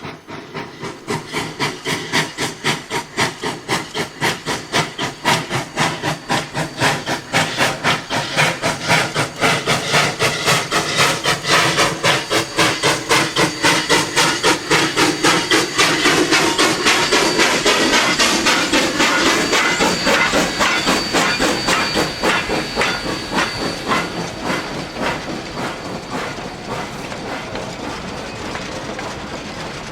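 Denver and Rio Grande Western No. 315, an 1895 Baldwin 2-8-0 narrow-gauge steam locomotive, working hard with a rapid, even beat of exhaust chuffs over hissing steam. The beat grows louder to a peak about halfway through and then fades as the locomotive passes.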